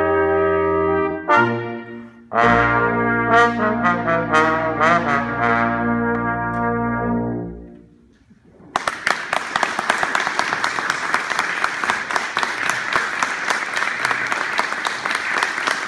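Brass ensemble of trumpets and trombones playing the closing bars of a piece: a held chord, a short figure, then a final long chord over a low note that dies away about eight seconds in. After a brief pause the audience breaks into applause.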